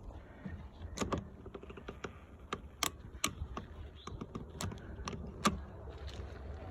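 Ratchet strap being cranked, its ratchet giving irregular sharp clicks, the loudest about five seconds in, as the strap's tension forces a tire plug tool into a car tire.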